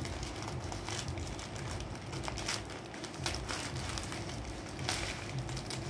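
Scissors cutting through the newspaper and tape wrapped around a potted plant's root ball, with steady paper crinkling and rustling and a few faint snips.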